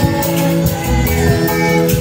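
Live church band music: electric bass, electronic keyboard and a drum kit playing together with a steady beat.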